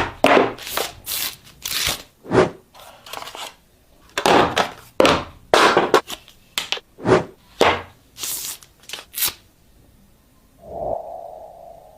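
Phone box and packaging being handled and opened: a quick series of scrapes, rips, crinkles and thunks of cardboard and plastic, stopping near the end. A brief steady buzzing tone follows shortly before the end.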